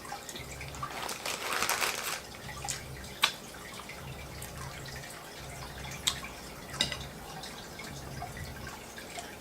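Close-miked eating sounds: wet chewing and mouth clicks. A louder noisy stretch comes about a second in, and a few sharp clicks follow later.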